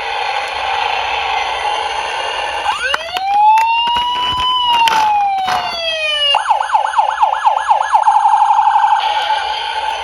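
Electronic emergency-vehicle siren: a slow wail that rises, holds and falls, then a quick yelp of about four sweeps a second that speeds into a rapid warble. Under it runs a steady rushing noise with scattered clicks.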